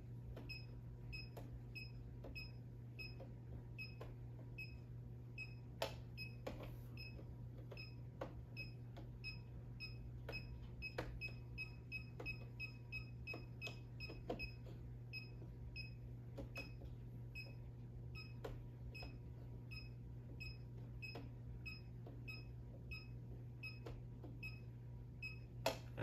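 Klein circuit breaker finder receiver giving short, high beeps, about two a second and quicker for a few seconds in the middle, as it is swept across the breakers in search of the circuit, with light clicks of the tool tapping breaker handles over a low steady hum.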